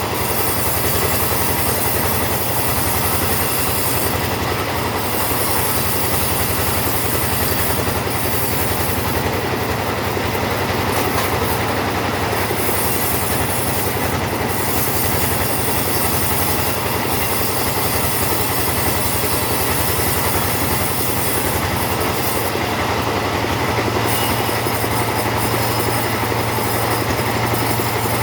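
Chainsaw running steadily under load, cutting through teak wood without a break.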